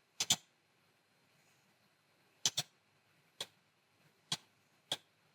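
Computer mouse clicks: a quick double click, another double click about two and a half seconds in, then three single clicks about a second apart.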